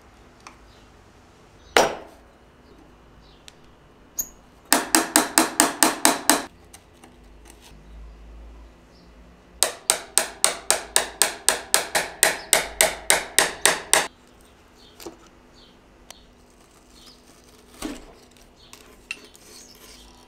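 Rapid light hammer taps, metal on metal, on a tool being worked in under a reed organ's mute. A single knock comes first, then a quick run of about ten ringing taps, and after a pause a longer steady run of about twenty.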